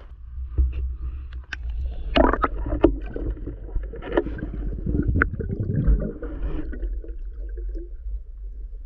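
Water splashing and bubbling as a diver ducks from the surface under water, with sharp clicks and knocks for the first several seconds. It then settles into a quieter, muffled underwater rumble.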